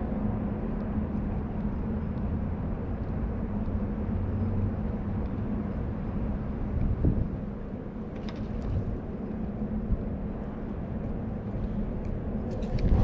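Steady low rumble of road traffic with a faint constant hum, with a louder burst of noise near the end.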